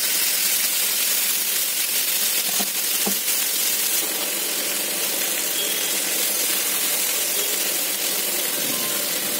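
Marinated chicken pieces sizzling in two spoonfuls of hot oil in a nonstick frying pan, a steady hiss. A few light clicks of a metal spatula against the pan come about three to four seconds in.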